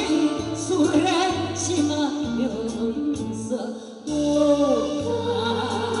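A woman singing a Korean song into a microphone over instrumental backing with a steady bass beat. The music dips briefly about four seconds in, then the voice comes back.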